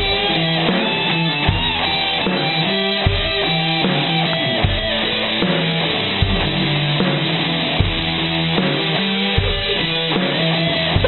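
Background rock music: electric guitar and drums, with a heavy low beat about every second and a half.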